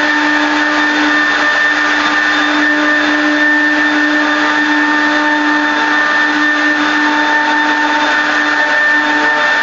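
4-axis CNC router's spindle running with a steady, high whine while carving wood.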